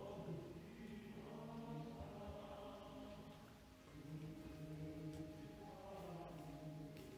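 A hymn sung together by a congregation, in slow, held notes, with a brief pause for breath about halfway through.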